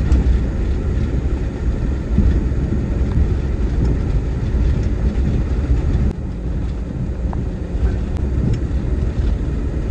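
Van driving along a rough dirt track: a steady low rumble of engine and road noise that eases slightly about six seconds in.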